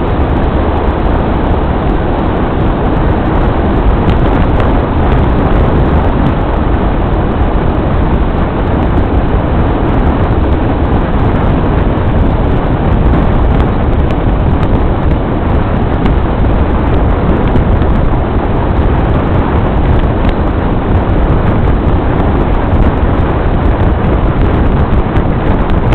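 Steady road and wind noise from a moving vehicle, a continuous rumble with no distinct engine note or events.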